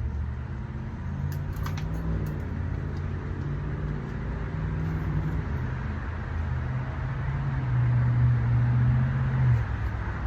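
An engine running, a low hum whose pitch shifts slowly; it grows loudest about eight seconds in, then drops off shortly before the end.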